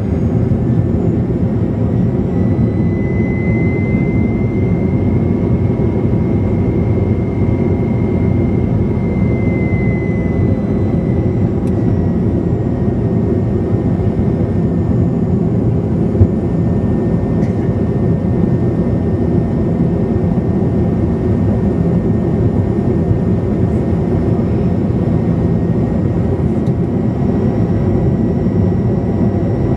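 Steady drone of a turboprop airliner heard from inside the cabin during descent: engine and propeller hum with a faint high whine that swells and fades within the first ten seconds or so. One brief click about sixteen seconds in.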